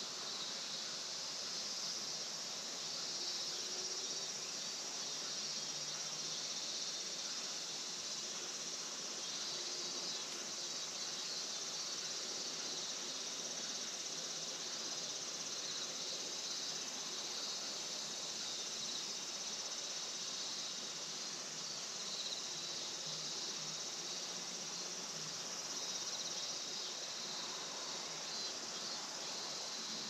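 A steady chorus of insects in a rice field on a late-summer evening: an even, high shrill with no pauses, over a faint outdoor hiss.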